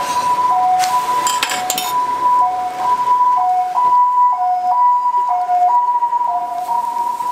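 A two-tone siren: a steady higher tone broken about once a second by a short lower tone, repeating throughout. Light metal clinks of tongs and spatula on a griddle come about a second in.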